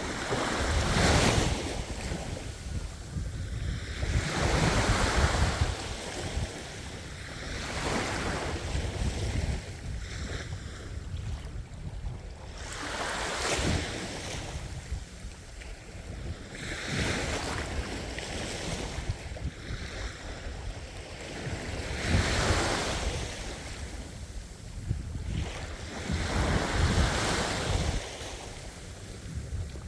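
Sea waves breaking one after another, each surge rising into a wash of noise and ebbing away, about every four seconds, over a steady low rumble.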